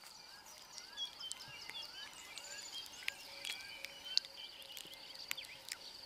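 Faint bush ambience: insects keep up a steady high buzz, with a run of short rising chirps from small creatures and scattered sharp ticks.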